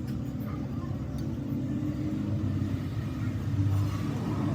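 A low, steady engine rumble, growing a little louder near the end, with a few faint clicks over it.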